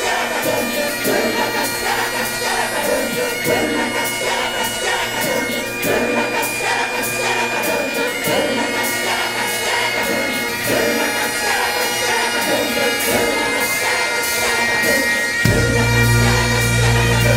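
Bagpipes playing long held melody notes over their steady drones. About fifteen seconds in, a loud low bass comes in underneath.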